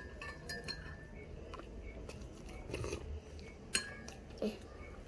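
Metal spoon clinking against a ceramic mug as it is stirred and scooped: a few sharp clinks with a short ring, the clearest right at the start and at about three and three-quarter seconds.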